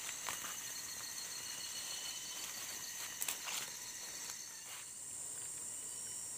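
Steady high-pitched drone of insects in tropical scrub, growing stronger about five seconds in, with a few faint clicks and scuffs that fit footsteps on the path.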